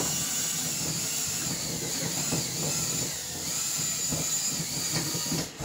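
DeWalt-style cordless drill running steadily at speed, its hooked bit spinning down in a hole in the plywood floor to chew out the laminated foam core beneath. It stops abruptly near the end.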